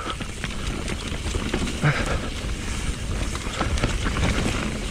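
Mountain bike rolling fast down a dirt forest singletrack: continuous tyre noise on the dirt with frequent rattles and knocks from the bike over roots and stones.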